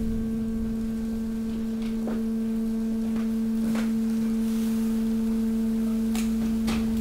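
Hydraulic waste press running, its pump giving a steady hum on one pitch, with a few faint crackles of paper and plastic as the waste shifts.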